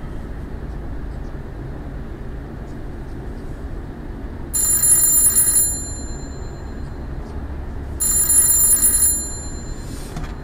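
A telephone ringing twice, each ring a high electronic trill about a second long, with a pause of about two and a half seconds between them. A steady low rumble runs underneath.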